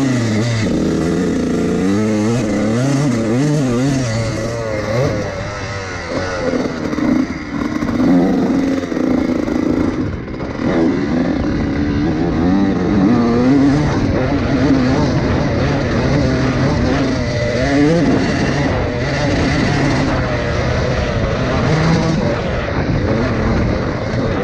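Honda CR two-stroke motocross bike engine revving, its pitch rising and falling again and again.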